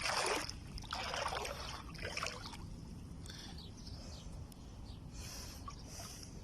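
Small waves lapping and splashing at the water's edge, in short washes about a second apart that die down midway and pick up again near the end.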